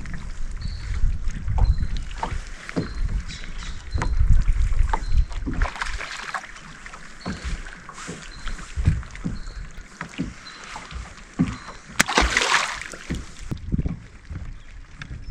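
Wind rumbling on the microphone and water knocking against a bass boat's hull, with faint short high beeps repeating about once a second. About twelve seconds in comes a loud hissing splash lasting over a second.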